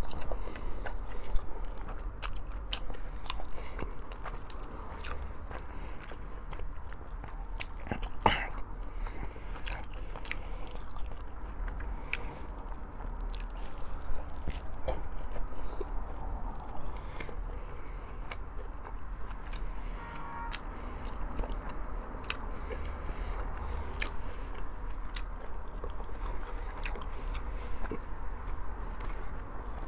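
A person chewing and eating food close to the microphone, with many small wet mouth clicks throughout and one louder sound about eight seconds in.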